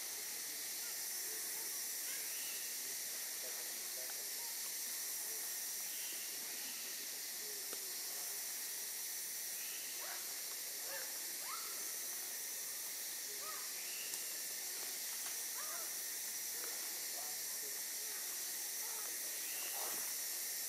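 Tropical rainforest ambience: a steady high hiss, with scattered short, faint calls throughout.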